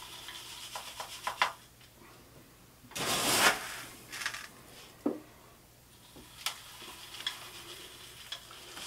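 Granular bonsai substrate being scooped and poured into a pot around a newly placed tree: scattered small clicks of grit, with one louder, half-second rushing pour about three seconds in.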